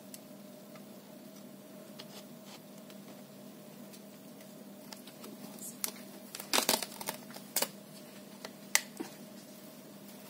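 Hands handling a Dell Precision 5520 laptop display assembly: scattered sharp clicks and taps of plastic and metal parts, clustered a little past the middle, over a steady low hum.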